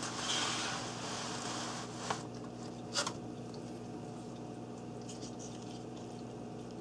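Handling noise from a handheld camera: a short rustle, then two sharp clicks about a second apart, over a steady low hum.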